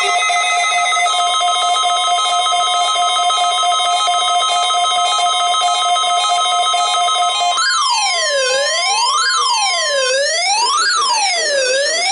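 Electronic alert tones from a NOAA Weather Radio weekly test. A steady tone near 1 kHz, fitting the 1050 Hz weather-radio warning alarm tone, sounds over a layered, repeating beeping pattern. About seven and a half seconds in, the beeping gives way to a siren-like tone sweeping up and down about once every second and a half, and the steady tone stops near the end.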